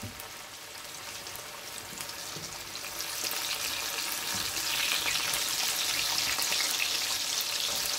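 Breadfruit slices frying in hot oil in a stainless steel pot: a steady crackling sizzle. It grows louder from about three seconds in, as the slices are turned over with a fork.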